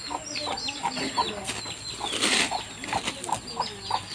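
Chickens clucking and peeping in quick, short, repeated calls, with a brief rustle a little past two seconds in.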